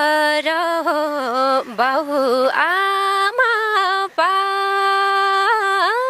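A young woman singing solo, without instruments, at the opening of a Nepali folk song: long held notes with quick ornamental turns between them, broken by a few short breaths.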